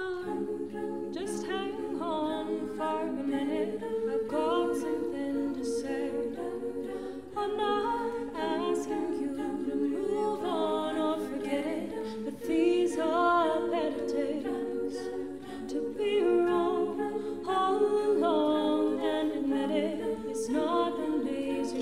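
All-female a cappella group singing: a solo female voice carries the melody over sustained chords from the backing voices, with no instruments.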